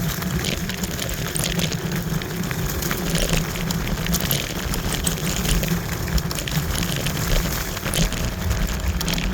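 Wind buffeting the microphone and road rumble while riding a Kaabo Wolf Warrior electric scooter up a hill, with many scattered ticks and rattles.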